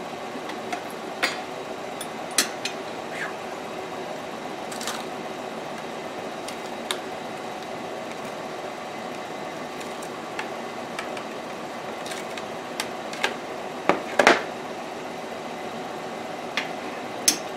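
Scattered light clicks and knocks of small plastic parts being handled on a workbench over a steady machine hum, with the loudest knocks about fourteen seconds in.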